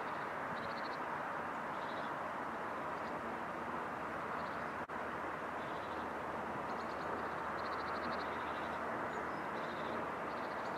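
Steady outdoor ambience: a continuous distant hum of town and traffic, with short high trilled chirps coming again and again over it. The sound drops out for a split second about halfway through.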